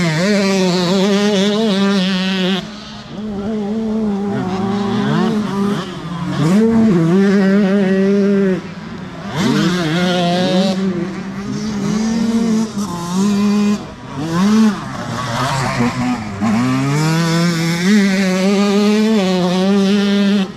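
Enduro motorcycle engines revving hard on a cross-test course, their pitch climbing, holding and dropping again and again as the throttle opens and closes. Late on, one long rising pull.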